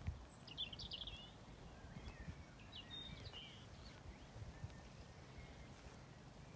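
Faint songbird chirps and trills: a short burst about a second in and another about three seconds in, over a low rumble.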